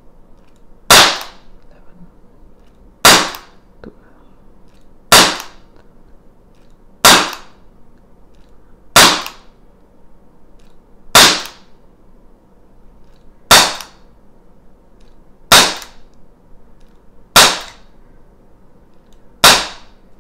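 CZ 75 P-07 Duty CO2 BB blowback pistol firing single shots: ten sharp cracks about two seconds apart, each a short burst of CO2 as the slide cycles.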